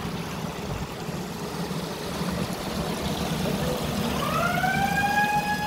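A stainless-steel honey dehydrating machine running with a steady mechanical hum and rushing noise. About three and a half seconds in, a high electric-motor whine rises in pitch and then holds steady as the motor comes up to speed.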